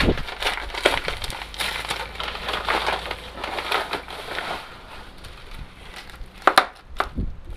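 Crinkling and rustling of a padded paper envelope and a clear plastic bag as a new part is unwrapped, busiest in the first four seconds, then two sharp clicks near the end.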